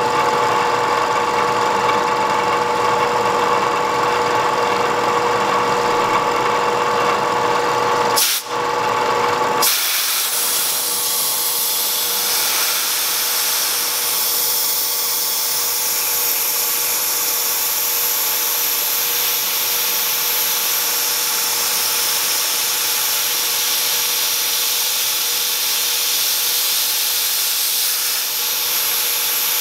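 Bridgeport milling machine running, its end mill cutting a fuller groove in a steel knife blade, with a steady whine of several held tones. About eight seconds in the sound briefly drops out. From about ten seconds a steady high hiss takes over and the tones fade.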